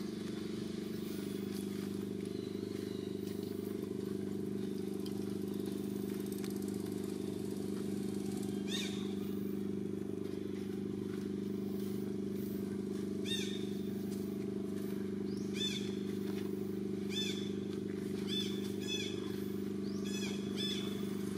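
A steady low mechanical drone, like an idling engine, runs unchanged throughout. From about nine seconds in, short high squeaky calls break in, one every second or so and more often toward the end.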